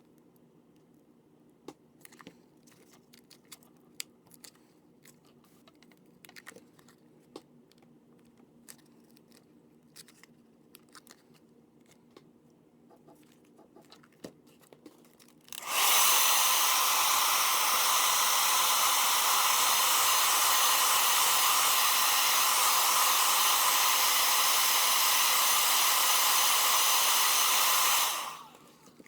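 A hair dryer switched on about halfway through, blowing steadily for about twelve seconds and then switched off, heating the adhesive under a phone's front screen so the glass can be lifted. Before it come only faint scattered clicks and taps.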